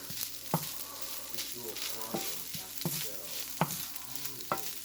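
Food sizzling as it fries in a pan, with a utensil stirring it and knocking sharply against the pan about five times at uneven intervals.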